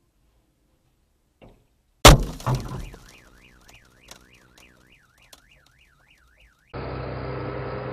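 A vehicle collision about two seconds in: a loud crash as the windshield shatters, with bits of glass clicking afterwards. A car alarm then wails, its pitch rising and falling rapidly, until a steady low hum with street noise abruptly takes over near the end.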